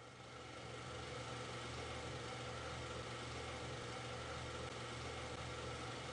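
Steady low hum with an even hiss over it, fading in over the first second and then holding level without change.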